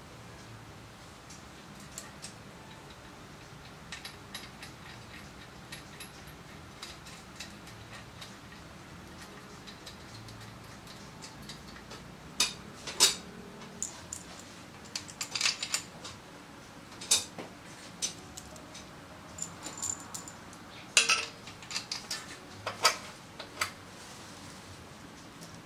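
Metal tools and bolts clinking and tapping against engine and transmission parts during motorcycle assembly. The first half is mostly quiet, with a few faint clicks; the second half brings scattered sharp clinks, several close together.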